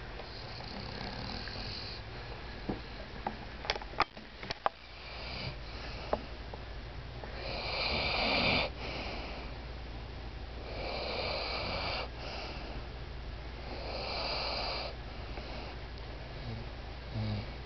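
Dog snoring in its sleep: long, loud snores coming about every three seconds, the loudest about eight seconds in. A few sharp clicks sound about four seconds in.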